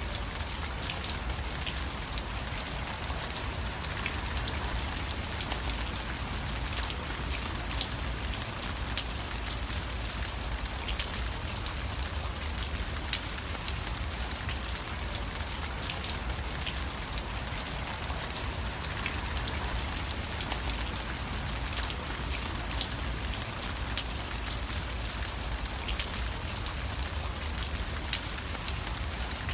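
Steady rain falling, a constant patter with scattered individual drop ticks, a few of them louder, near 7 and 22 seconds in.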